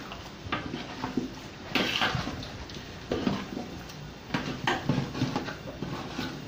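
Long metal spatula stirring chunks of potato, carrot and white radish through thick spice paste in a large metal pot, scraping and knocking against the pot in a handful of uneven strokes.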